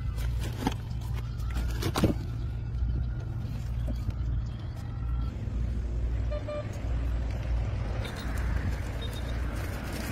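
Steady low engine rumble, like a motor vehicle running, with a couple of sharp knocks about a second and two seconds in.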